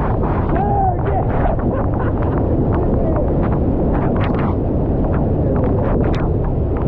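Loud, steady roar of a waterfall pounding down at close range with wind buffeting the microphone, broken by frequent sharp crackles of spray striking it.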